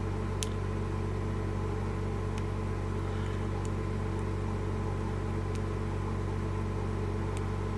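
Steady electrical or mechanical hum, with a few faint sharp clicks of a lock pick working the pins of a small five-pin pin-tumbler padlock.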